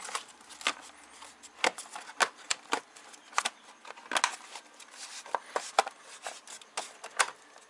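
Irregular plastic clicks and knocks, a dozen or more, as the cover of a VW Mk4's waterfall tray (the cowl tray under the windshield) is closed and pressed shut over the relays tucked inside.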